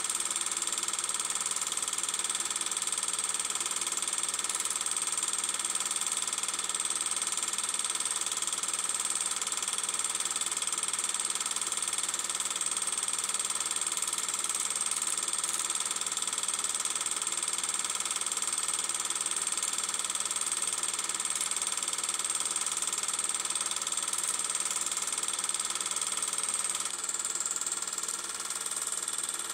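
A steady droning hiss with a few fixed high tones, unchanging throughout and dipping slightly near the end.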